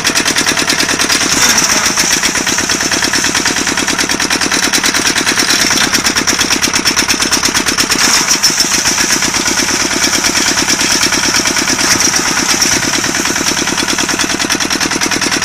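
Diesel engine of a walk-behind tractor running steadily with a rapid, even clattering beat. The clutch is let out but is not engaging and the tractor does not drive, a fault the owner puts down to soil stuck on the guide sleeve of the clutch release bearing.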